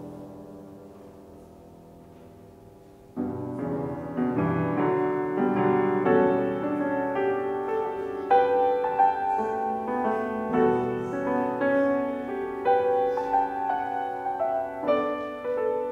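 Grand piano playing classical music. A held chord fades for about three seconds, then a louder passage of struck chords begins and carries on.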